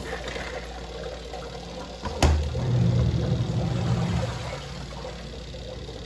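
Midea twin-tub washing machine running with a steady low hum; a sharp knock comes about two seconds in, followed by a louder low rumble for about two seconds.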